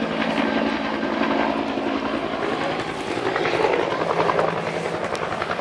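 Helicopter with a two-bladed main rotor flying past, the rotor beating in a rapid steady rhythm over a steady engine hum that drops in pitch a little after halfway through.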